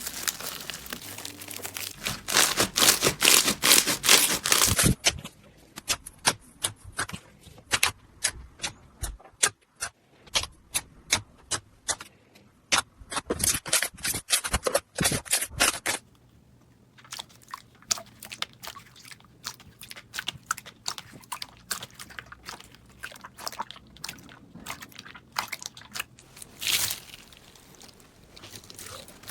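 Slime being squeezed and pressed by hand, giving dense crackling and sticky popping clicks, with separate sharp pops between the denser bursts.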